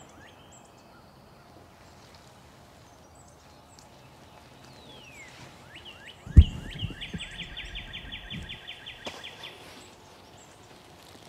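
Songbirds singing in spring woodland: scattered chirps, a falling whistle, then a rapid trill lasting about three seconds from about six seconds in. A loud thump at about six seconds, followed by a few low knocks, and a sharp click near nine seconds.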